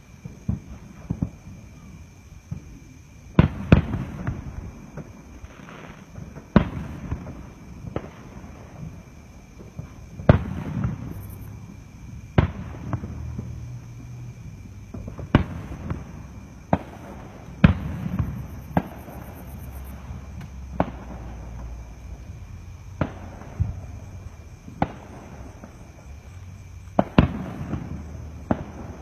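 Aerial fireworks shells bursting in a public display: sharp bangs at irregular intervals, usually one to three seconds apart, each trailed by a low rumble, with the loudest bursts bunched together a few seconds in and again near the end.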